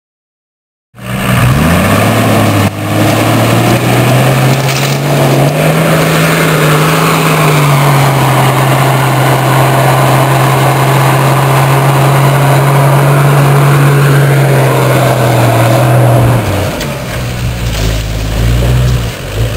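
Toyota Land Cruiser engine revved hard under load while its wheels spin in soft sand, struggling to climb a sandy riverbank on crossply tyres. The revs climb about a second in, are held high and steady, then drop off near the end.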